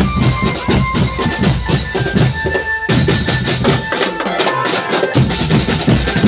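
A marching drum band playing: rapid snare and bass-drum beats under a melody line. The low drums drop out for about a second around four seconds in, then come back in.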